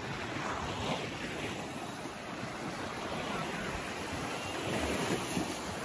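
Small sea waves washing steadily onto a pebble-and-sand shore.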